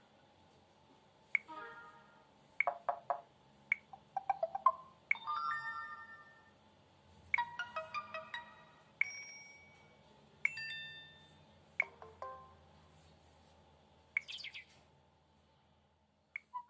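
Samsung Galaxy Ace playing its preloaded SMS notification tones one after another: roughly ten short electronic chimes and jingles, each a second or less, with brief pauses between.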